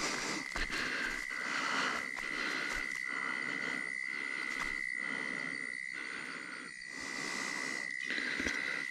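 Night-time insect chorus: a steady high-pitched whine held throughout, over a hissing buzz that pulses about twice a second.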